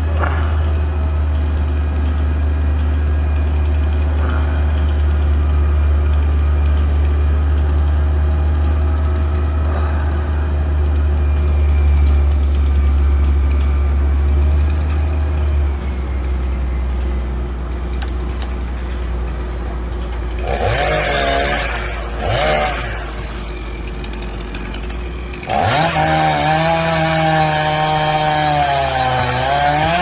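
A chainsaw revs twice briefly, then runs loud over the last few seconds with its pitch rising and falling as it works. Before it, a low steady engine hum fills the first half.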